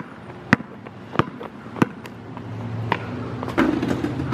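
Basketball dribbled on a concrete driveway: five sharp bounces, at first about one every half second, the last coming after a longer gap.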